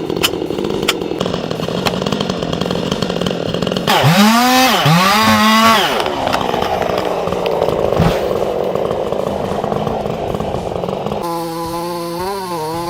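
Chainsaw running during tree felling, revved up twice in quick rising sweeps about four seconds in, then running on. Near the end a steady engine tone takes over.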